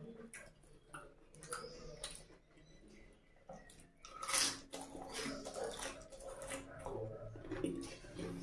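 Close-miked eating by hand: fingers squelching in egg curry, then a wet bite about four seconds in, the loudest sound, followed by chewing with repeated mouth clicks and lip smacks.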